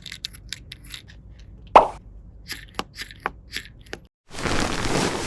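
Light clicks and taps of plastic toy pieces being handled, with one louder pop a little under two seconds in. About four seconds in, a steady hiss starts.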